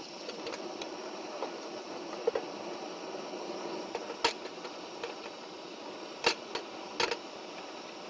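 Portable gas-canister camp stove burning with a steady hiss, with a handful of sharp metal clinks as a metal kettle is handled and set down on the burner, the loudest about six seconds in.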